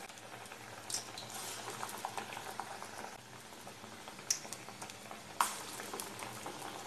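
Sprouted green gram vadas deep-frying in hot oil in a kadai: a steady bubbling, crackling sizzle as the batter patties go in, with a few sharp pops.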